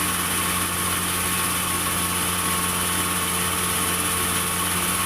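Sawmill machinery running steadily, a constant engine hum with an even hiss and no change in load.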